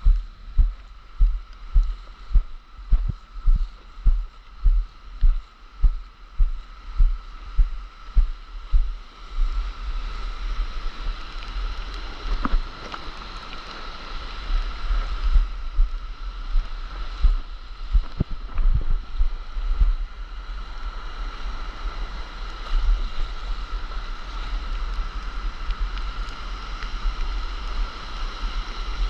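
Wind and shallow surf on a handheld or board-mounted action camera's microphone. Regular muffled thuds come about twice a second for the first nine seconds, then give way to a steady rush of wind and water.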